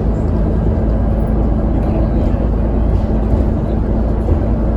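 Alexander Dennis Enviro400 double-decker bus (E40D chassis) heard from on board while under way: a steady engine and road rumble with a constant low hum and no sudden changes.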